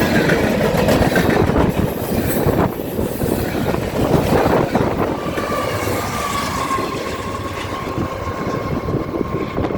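Norfolk Southern freight train's cars rolling past, their wheels clattering over the rail, slowly fading toward the end. A thin, slightly falling tone rings for a couple of seconds about halfway through.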